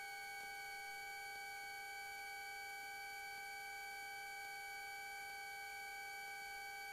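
Faint steady electrical whine in the aircraft's intercom audio feed: several pure tones held together without a break, the higher ones creeping slightly up in pitch.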